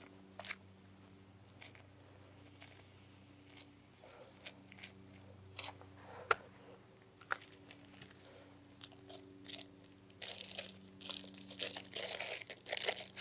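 Hands scrabbling through loose soil in a freshly dug hole, with scattered crumbles and small clicks, then from about ten seconds in a small plastic bag crinkling as it is handled and opened.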